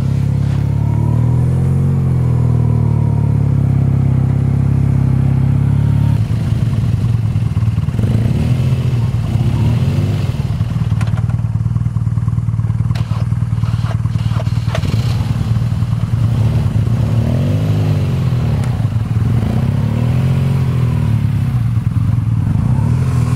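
BMW R1200GS Adventure's boxer-twin engine idles steadily. About six seconds in it starts running unevenly under load, revs rising and falling, as the heavy bike is pushed upright and ridden out of soft sand.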